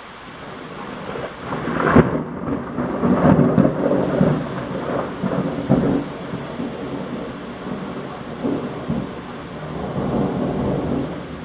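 Thunder over heavy rain: a sharp crack about two seconds in, then a long rolling rumble that fades and swells again near the end.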